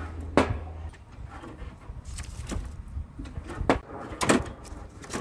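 Stainless-steel lid of a Pit Boss portable propane grill shutting with a metallic clunk about half a second in, followed by several more sharp metal knocks and clatter of the lid and grill.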